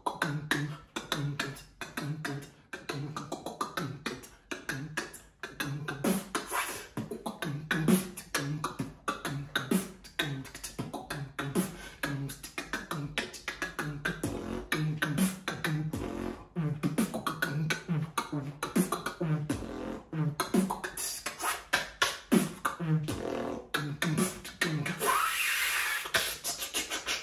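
Beatboxing: one person's mouth making rapid drum-like kick, snare and hi-hat clicks over short, repeated low pitched bass notes, with a long hiss near the end.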